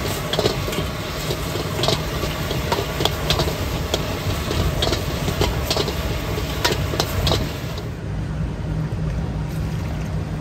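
Street-food stall cooking noise: repeated sharp metallic clinks and clatters, irregular and several a second, over a steady low rumble. About eight seconds in, the clatter stops and the sound turns duller.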